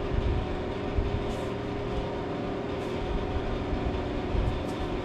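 Monarch 10EE lathe running, a steady machine hum with irregular low rumbling and a few faint knocks.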